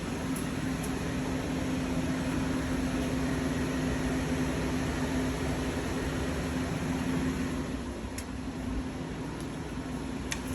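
Hurco VMX 42Ui five-axis vertical machining center running: a steady hum with a held low tone over a hiss, easing slightly about eight seconds in, with a couple of faint ticks near the end.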